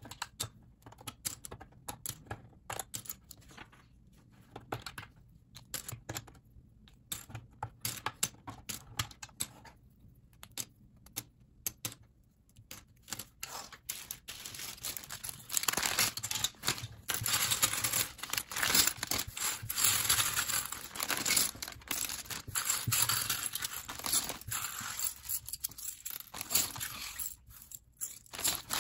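Plastic LEGO pieces clicking as they are pulled apart and dropped, clattering onto a pile of loose bricks in scattered clusters of sharp clicks. From about halfway, a denser rattle with plastic crinkling as the loose pieces are swept into a clear plastic bag, easing off near the end.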